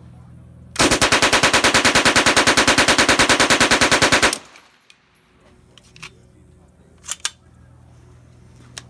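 Sten submachine gun firing one long full-auto burst of about three and a half seconds, roughly eight or nine shots a second, starting about a second in. A few light clicks follow after the burst stops.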